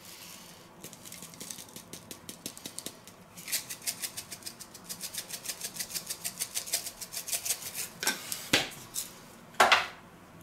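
Spice grinder being twisted to grind barbecue pepper over a plate: a fast, even run of ratcheting clicks, about six a second, faint at first and clearer from a few seconds in. Near the end come two short, louder knocks or rustles.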